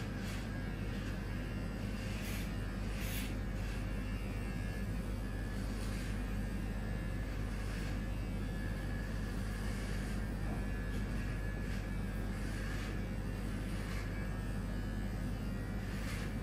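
Electric hair clipper running steadily with a low hum, with a few faint brief scratchy sounds over it.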